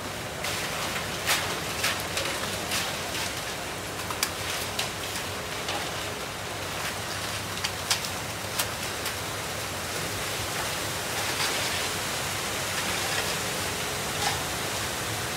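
Wet concrete pouring down a ready-mix truck's chute and spilling into the form, a steady gritty hiss like rain, with scattered sharp clicks and scrapes from a rake working the concrete. A low engine hum runs underneath.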